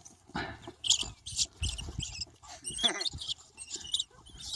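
Rats squealing in a series of short, shrill bursts, caught by dogs.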